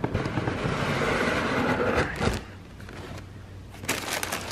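Cardboard sneaker box lid sliding off with a scraping rustle for about two seconds, ending in a soft bump. Near the end, tissue paper inside the box starts crinkling.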